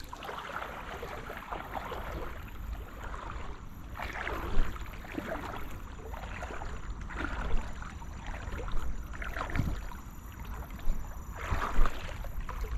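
Shallow river water sloshing and swishing around wading legs, with wind rumbling on the microphone and a few short louder thumps.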